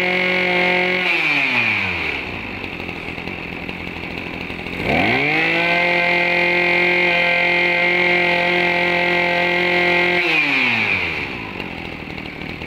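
Small 20cc Maru two-stroke brush cutter engine being throttled: running at full revs, falling to idle about a second in, revving back up about five seconds in and holding steady, then dropping back to idle after about ten seconds.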